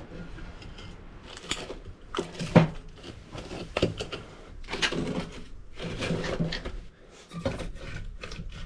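A cast-iron wood stove being stoked: its door opened, the coals stirred and split logs loaded into the firebox, giving a run of metal clanks, scrapes and wooden knocks. The sharpest knock comes about two and a half seconds in.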